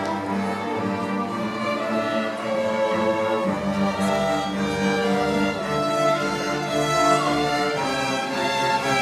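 High school string orchestra playing, violins over cellos, in long held notes above a steady low line.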